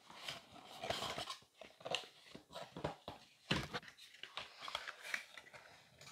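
Hands handling a cardboard perfume box, sliding the inner tray out of its sleeve and opening it: irregular light scrapes, rustles and taps, the sharpest about three and a half seconds in.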